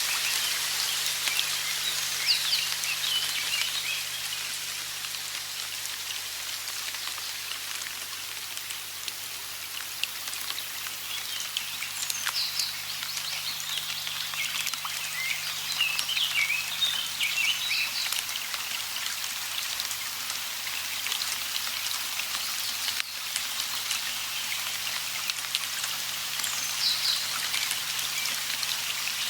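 Steady rain falling, with birds chirping in short bursts of quick, high notes a few times: about two seconds in, through a stretch in the middle, and again near the end.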